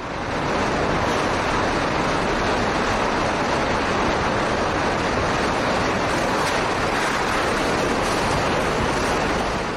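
Steady, loud roar of tornado-force wind and driving rain. It swells in over the first second, holds, and fades near the end.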